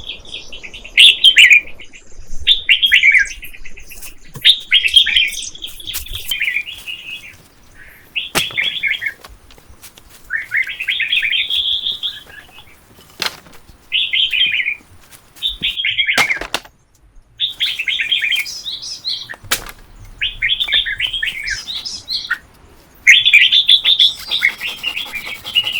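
A bird chirping in repeated bursts of rapid notes, each about a second long, with short pauses between them. A few sharp clicks fall in between.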